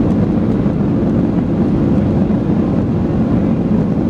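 Steady, deep cabin noise of a Boeing 737-900ER rolling on the ground, heard from a window seat beside its CFM56-7B engine.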